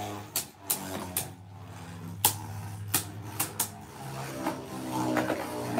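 Two Beyblade Burst spinning tops battling in a stadium, clashing with a series of sharp clacks, about seven in the first three and a half seconds, then spinning on with fewer hits.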